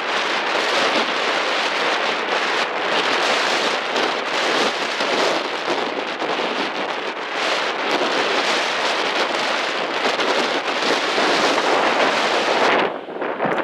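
Heavy wind noise on the microphone: a loud, dense rushing that swells and ebbs in gusts, with no clear engine tone standing out of it. The level drops briefly near the end.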